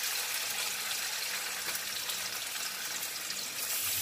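Tofu sizzling in coconut oil in a frying pan, a steady hiss, together with carrot strips boiling in water in a second pan.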